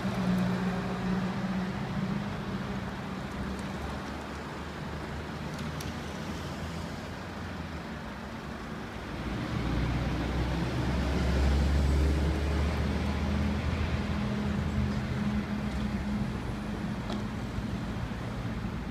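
Motorway traffic with engines running in a steady hum. Around halfway through, a heavy lorry passes close by, the loudest and deepest part, and then fades back into the traffic.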